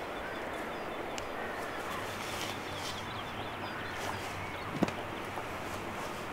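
Rural outdoor ambience with faint bird chirps over a steady background hiss, and a single sharp knock about three-quarters of the way through.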